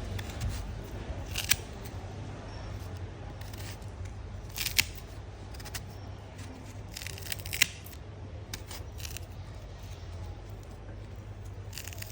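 A knife cutting into a crisp guava: sharp crunching snaps a few seconds apart, the loudest three near the start, the middle and about two-thirds through, with smaller crackles between, over a low steady hum.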